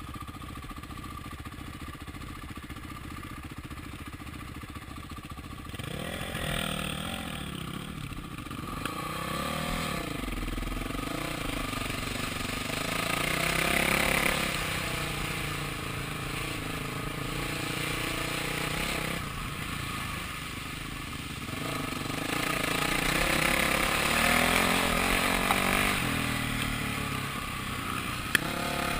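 Honda CRF450R single-cylinder four-stroke dirt bike engine, running at low, steady revs for the first few seconds while wading, then revving up and down repeatedly. Water sprays up loudly about halfway through as the bike ploughs through the flooded track.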